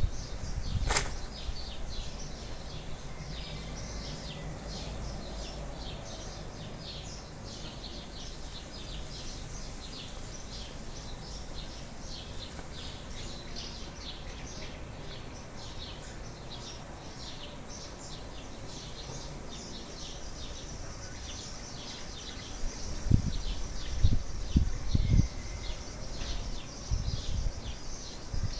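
Outdoor garden ambience: many short, high chirps repeat steadily throughout, with a sharp click about a second in and a few loud low rumbles near the end.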